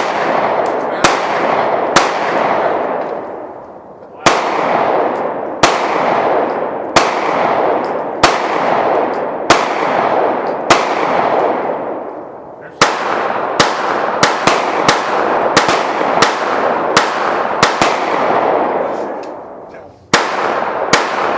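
Gunshots on an outdoor shooting range: sharp reports roughly once a second, each trailing off in a long echo, with a quicker run of shots in the middle.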